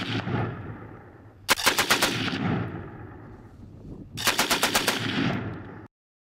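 Machine gun firing short bursts of automatic fire: the end of one burst, then two more bursts of rapid shots about a second and a half and four seconds in, each trailing off in echo. The sound cuts off suddenly near the end.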